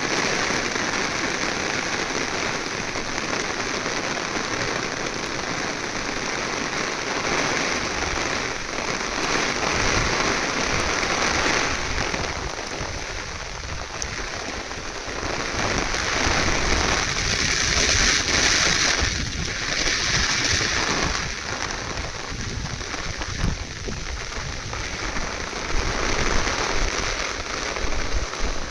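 Heavy rain falling steadily, a continuous hiss of rain on surfaces.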